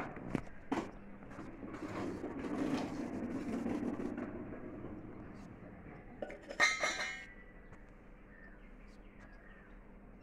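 Bronze cups knocked and handled: two light knocks in the first second, some rustling, then a clink of metal on metal about six and a half seconds in that rings briefly.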